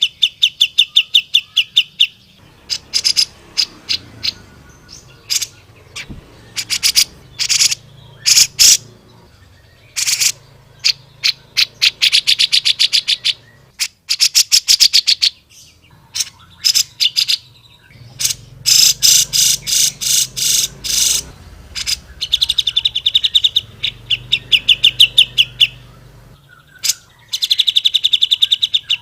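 Cucak jenggot (grey-cheeked bulbul) calling vigorously in a fast, aggressive run: rattling trills of rapidly repeated high notes, each lasting a few seconds, broken up by sharp single chirps and short pauses.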